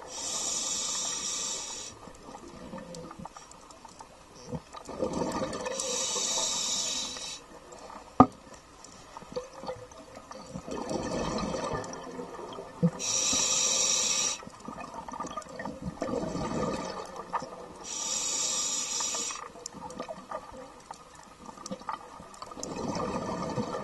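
A scuba diver breathing underwater through an open-circuit regulator: a hiss on each breath and a bubbling rush, the cycle repeating about every five to six seconds, four times. A single sharp click sounds about eight seconds in.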